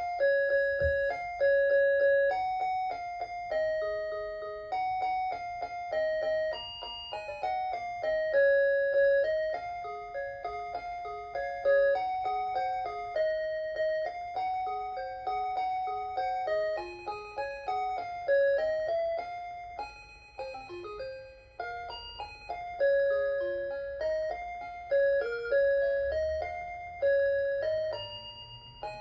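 Hitachi DW-237 melody alarm clock (a Citizen Melody Box Half OEM) playing one of its built-in electronic children's-song melodies. The notes strike and die away like chimes, with harmony sounding alongside the tune.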